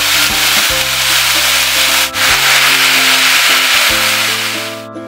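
Marinated beef bulgogi with vegetables sizzling on a hot cast-iron Korean barbecue grill plate while tongs stir and scrape the meat, over background music. The loud sizzle cuts off near the end.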